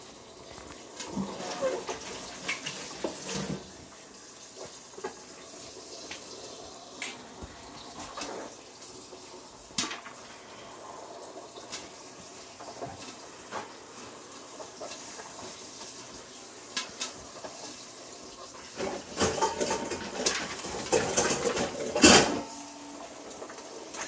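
Stir Crazy electric popcorn popper heating microwave-popcorn kernels in oil: a steady sizzle with scattered sharp pops and clicks. The popping gets going near the end, with a quick run of louder pops and rattles.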